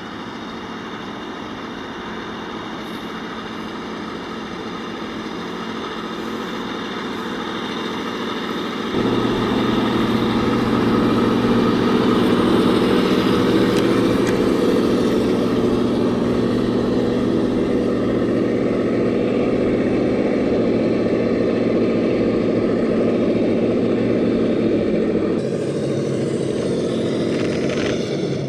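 A steady engine-like drone of several held tones, louder from about nine seconds in and dropping back a little near the end.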